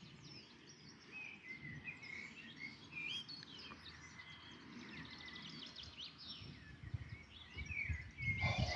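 Songbirds singing and chirping: many short whistles rising and falling, over a faint steady background. A low rumble comes in near the end.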